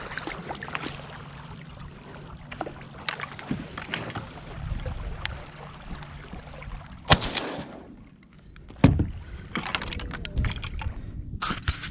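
Hollow knocks, clicks and rustling of people and gear moving about in a small hunting boat. The sharpest knocks come about seven and nine seconds in.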